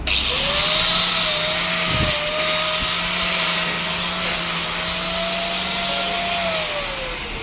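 Electric polisher with a polishing wheel working a welded steel pipe joint: a steady whine over a loud hiss that starts suddenly. Near the end the motor winds down, its pitch falling.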